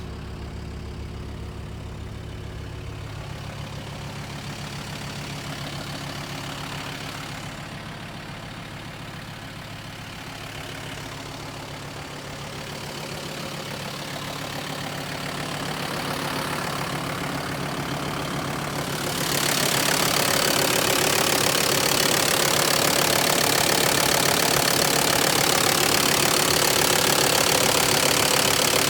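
Mercedes G-class 2.9-litre five-cylinder turbo diesel (290) idling steadily with diesel clatter. It grows louder and harsher about two-thirds of the way in.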